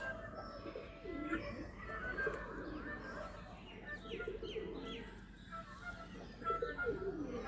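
Pigeons cooing several times, low rolling coos, with other birds chirping higher over them.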